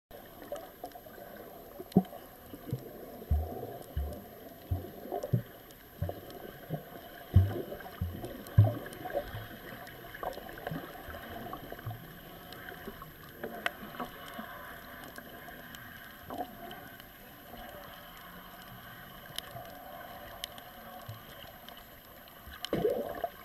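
Boat on the sea: irregular low thumps and sharp knocks, closely spaced in the first nine seconds, over a steady wash of water noise, with one louder knock near the end.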